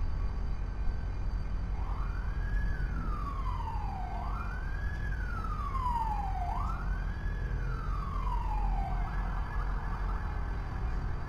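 An emergency vehicle's siren wailing through three cycles, each a quick rise then a long slow fall, over a steady low rumble.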